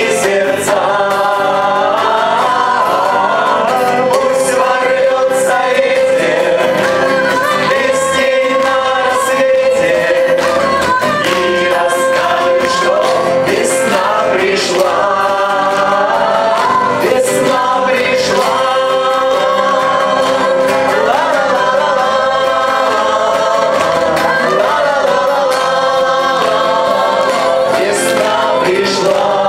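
A mixed group of men, women and children singing a song together, accompanied by acoustic guitars.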